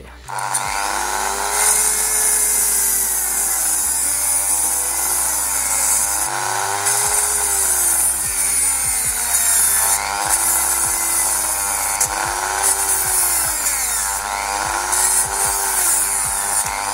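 A handheld power tool cutting into the plastic slats of a car dashboard air vent. Its motor pitch rises and falls over and over, about every second and a half, as the tool bites into the plastic and eases off.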